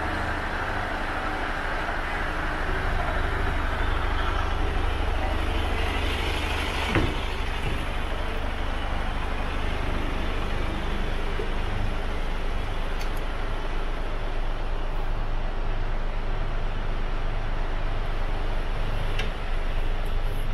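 Mercedes-Benz Actros 2545 tractor unit's 450 bhp diesel engine idling steadily, a low even hum. A single sharp knock comes about seven seconds in, as the cab is climbed into.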